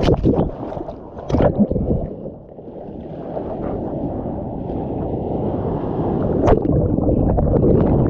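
Seawater rushing and splashing over a GoPro in its waterproof housing as a bodyboarder paddles through breaking waves, heard muffled and low-pitched. Sharp splashes hit right at the start, about a second and a half in and again around six and a half seconds, and the rush builds toward the end as the camera goes under whitewater.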